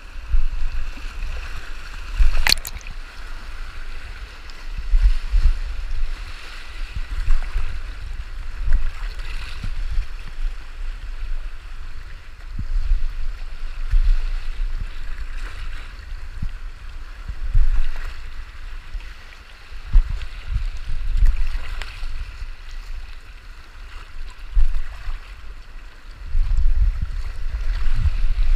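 River water rushing and splashing around an inflatable canoe running rapids, heard through an action camera's housing, with an uneven low rumble from the water and a single sharp click about two and a half seconds in.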